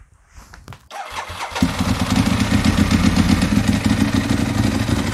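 Motorcycle engine starting: it catches about a second in, then runs steadily with an even, rapid pulse.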